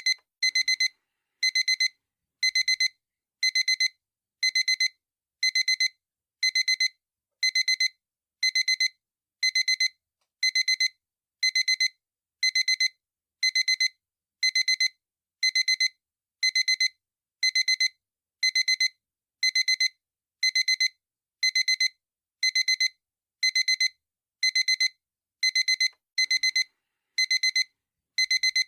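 Digital alarm clock beeping: a short burst of rapid high beeps about once a second, repeating evenly.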